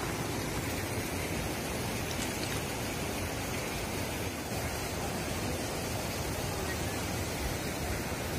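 Steady rush of a fast mountain river tumbling over rocks and stones: a constant, even noise with no breaks.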